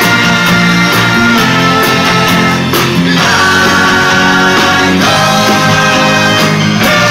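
Four-man vocal group singing in close harmony with a backing band through a stage PA: long held chords that change every couple of seconds, over a steady cymbal beat.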